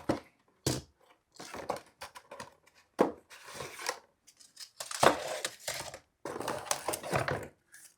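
Adhesive LED light strip being peeled off the wall: a series of short tearing rips and handling clicks, the longest stretch of ripping about five seconds in.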